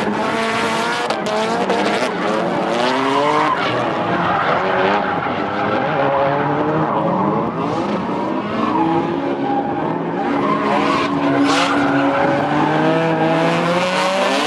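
Cars drifting in tandem: engines revving up and down under power while their rear tyres squeal and skid across the asphalt.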